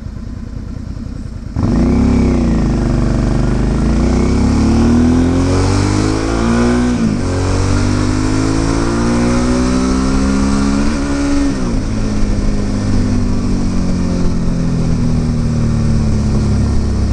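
Suzuki V-Strom DL650's V-twin engine accelerating under way: it comes in suddenly, its pitch climbs and drops back at two gear changes, then it runs steadily at cruising speed.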